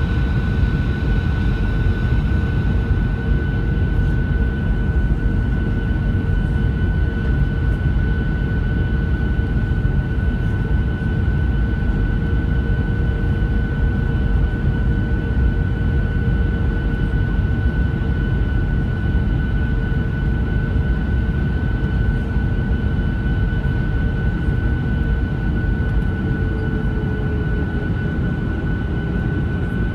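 Jet airliner's underwing turbofan engines and airflow heard from inside the cabin during final approach: a steady roar with a steady whine. Near the end one of the engine tones drops slightly as the aircraft nears the runway.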